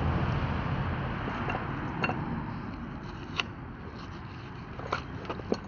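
Filleting knife scraping trout flesh off the skin on a wooden board, a steady scraping with a few sharp clicks scattered through it.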